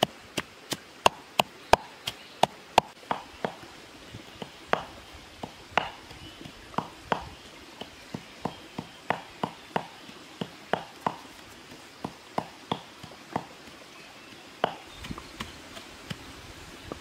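A knife chopping into a whole fish, quick and even, about three strokes a second for the first few seconds; then slower, irregular knocks of a pestle pounding in a clay mortar.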